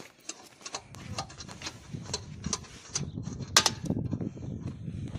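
Irregular metallic clicks and clinks of wheel nuts being unscrewed by hand from a tractor's rear wheel hub, with a sharper click about three and a half seconds in.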